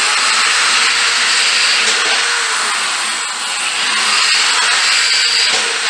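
Corded electric drill running steadily as it bores through a stack of thin aluminium pans, a motor whine mixed with the noise of the bit cutting the metal; it stops near the end.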